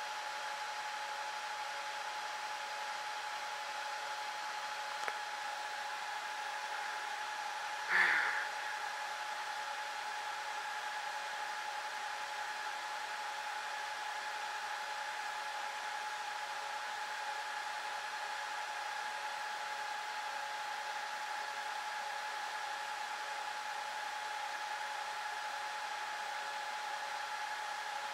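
Dell PowerEdge 2650 server's cooling fans running steadily during boot, a constant rush of air with a steady whine. A faint click about five seconds in and a short louder sound about eight seconds in.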